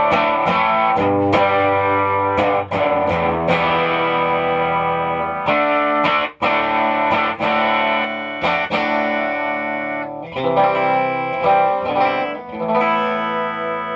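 Electric guitar played through a small homemade three-tube amplifier (12SQ7 preamp, 50L6 output tube) converted from a late-1950s Symphonic record player amp, driving a real guitar-amp speaker. Picked chords and notes ring on, each with a sharp attack.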